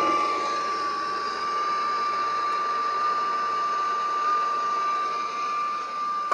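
MAP gas torch burning with a steady hiss and a thin, steady whistle, held on a copper pipe joint while the heat draws the solder into the fitting.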